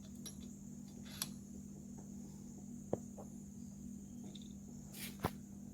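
Handling noise: a few light, sharp clicks and taps over a steady low electrical hum. The sharpest clicks come a little before three seconds and just after five seconds.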